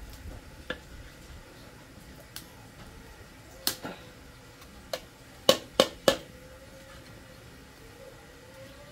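Metal spatula scraping through dry granules in a metal pan, with a few sharp clicks of metal on metal. Near the middle come three loud knocks in quick succession, the spatula struck against the pan.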